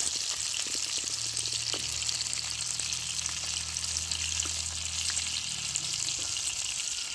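Vietnamese spring rolls (nem rán) frying in oil in a pan: a steady sizzling hiss with small scattered crackles.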